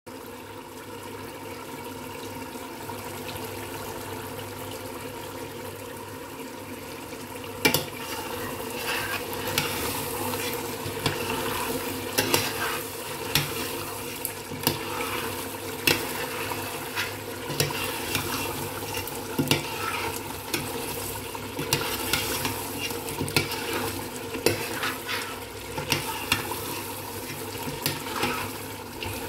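Chicken curry sizzling in a stainless steel pot over a steady hum. From about eight seconds in, a metal spoon stirs it, scraping and clinking against the sides of the pot about once a second.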